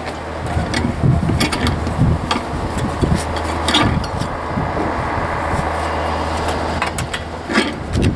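Steel tie wire being twisted and pulled tight with pliers at the foot of a wooden column formwork box: scattered metallic clicks and scraping, over a steady low engine-like hum.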